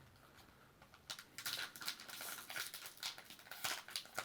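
Foil booster-pack wrapper crinkling and crackling as it is worked and torn open by hand, starting about a second in.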